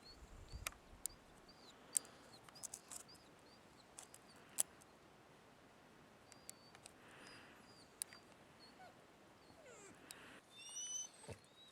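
Small birds chirping faintly in short, high, repeated chirps, with a louder run of chirps near the end. A few sharp clicks are scattered through it.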